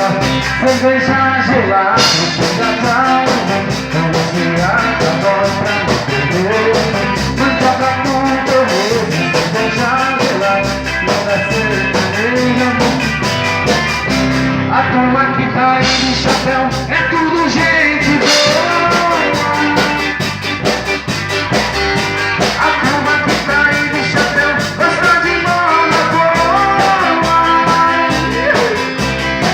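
Band music: a loud, mostly instrumental passage with a steady beat and melodic lines, and no sung words.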